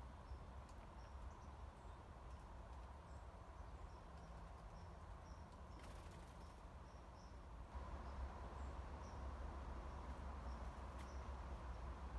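Quiet outdoor ambience: faint, short high chirps repeating about once or twice a second over a steady low rumble. There is a brief rustle about six seconds in, and the background gets a little louder just before eight seconds.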